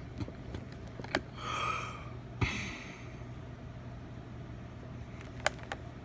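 Quiet room with a steady low hum, broken by a few sharp clicks, a knock followed by a short hiss, and a brief breathy rush.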